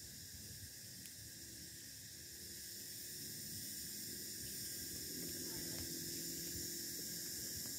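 Outdoor ambience: a steady high hiss over a low, uneven rumble, growing a little louder about halfway through.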